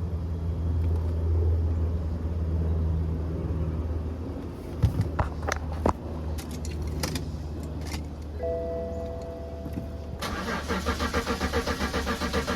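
BMW M54 straight-six turned over by the starter motor from about 10 seconds in, an even rhythmic cranking that does not catch: a crank-no-start, with a crankshaft code stored. Before it, a steady low hum, a few sharp clicks in the middle, and two steady tones for about two seconds.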